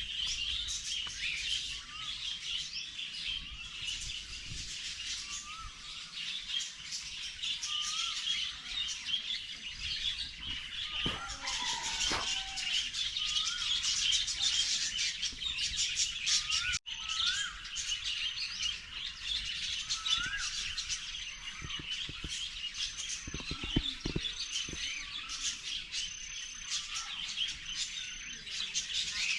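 Forest birds chirping and calling: a dense chorus of high chirps, a short rising call repeated about once a second, and a run of short high piping notes in the second half. The sound drops out for an instant a little past halfway.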